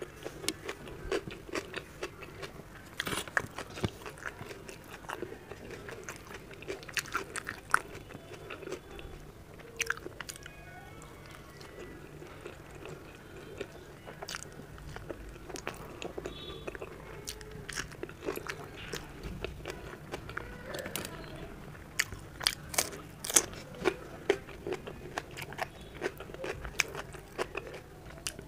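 Close-miked eating: crunchy bites and chewing of raw green chili, paratha with potato-capsicum sabzi, and tomato slices. The crunches come as many sharp clicks, thickest a little past three quarters of the way through.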